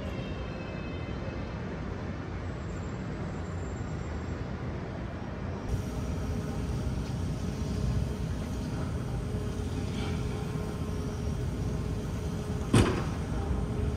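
Steady city street traffic noise, a little louder after about six seconds, with a single sharp bang near the end.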